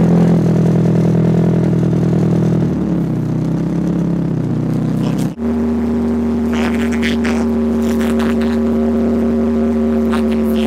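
VW Mk2's engine running, its note easing off about three seconds in. A sudden break comes about halfway, and after it a steady engine hum continues.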